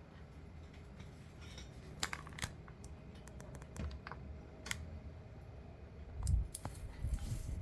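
Scattered light clicks and taps of items being handled and set down, with a quick run of small ticks near the middle and a duller thump a little after six seconds in.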